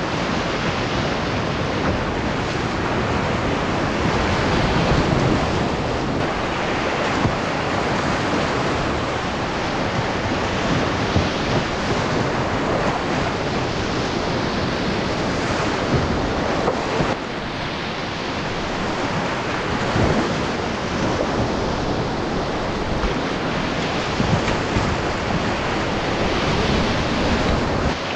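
Whitewater rapids rushing loudly and steadily around a canoe, the noise of churning water close to the microphone.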